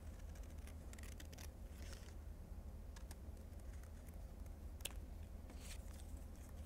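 Scissors snipping through paper: a series of soft, irregular cuts, with one sharper snip about five seconds in.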